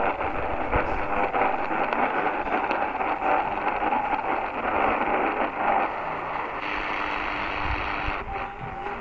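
Tecsun PL-310ET shortwave receiver tuned to 7075 kHz, its speaker giving a steady wash of band static with faint thin tones of FT8 digital ham radio signals mixed in. A lower tone holds for about a second and a half near the end.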